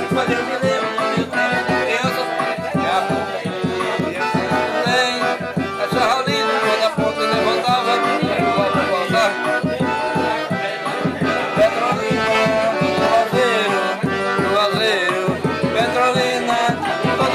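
Accordion-led music with a steady drum beat.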